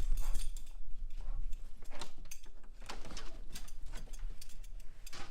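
Irregular taps and rustles, a few a second, over a steady low rumble.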